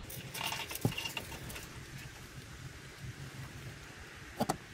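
Screwdriver turning a small stainless steel bolt into a brass gas fill-point housing: a cluster of light metal clicks and scrapes with brief squeaks in the first second and a half, then two sharp clicks near the end.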